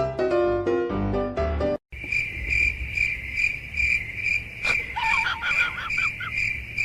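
Piano music for the first two seconds, then, after a sudden cut, crickets chirping in a steady high pulse about twice a second. A sharp click and a run of short, high rising squeaks come about two-thirds of the way through.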